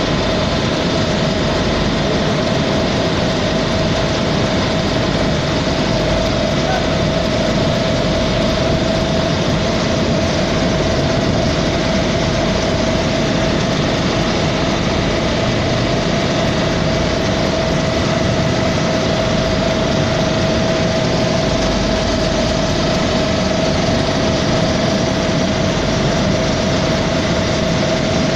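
Large fin fan cooler fan running: a steady rushing drone with a constant mid-pitched whine and low rumble.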